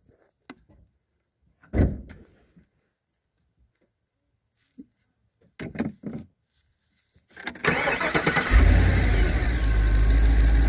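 A few faint knocks, then about seven and a half seconds in the car's engine cranks, catches a second later and settles into a steady idle. No belt squeal is heard: the serpentine belt runs quietly now that the rusty water pump pulley has been lubricated with silicone spray.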